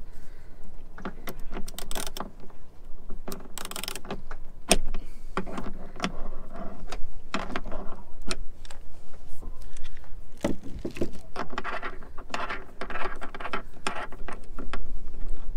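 Ratchet wrench clicking and metal clinking as a 17 mm nut is worked loose on a boat's single-lever engine control. The clicks come irregularly, with faster runs about four seconds in and again from about eleven seconds.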